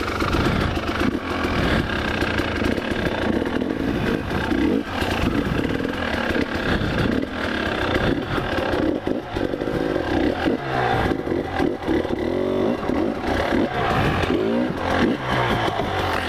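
Enduro dirt bike engine running under load, revving up and down repeatedly in the second half as the bike works over rocks in a stony creek bed. Frequent clattering knocks mix in with the engine.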